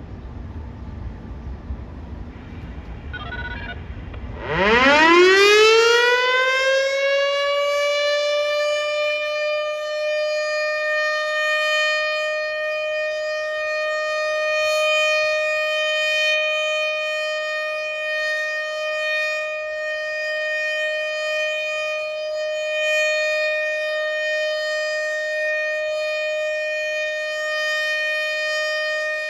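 Federal Signal Thunderbolt 1000 civil-defense siren winding up about four seconds in, its pitch climbing quickly and then holding one steady tone. The loudness swells and fades slowly as the siren head rotates.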